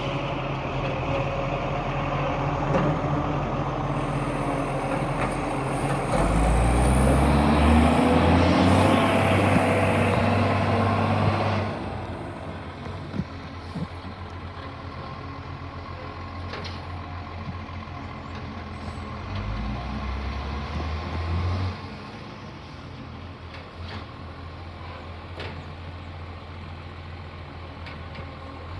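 Garbage truck's diesel engine running under load, with a high turbo whistle rising in pitch. The engine drops back to a lower, steady run about twelve seconds in, then revs up briefly about twenty seconds in, with a few sharp clicks.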